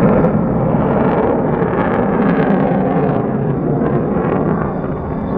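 F-35A Lightning II's Pratt & Whitney F135 afterburning turbofan in afterburner as the jet flies its demo, a loud steady rumble with crackling through the middle.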